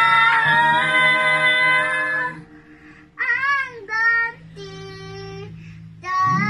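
A woman and two girls singing a hymn together in Bisaya (Cebuano), holding long notes. About two seconds in the singing falls away to a quieter, wavering voice and a single held note, then the full singing returns near the end.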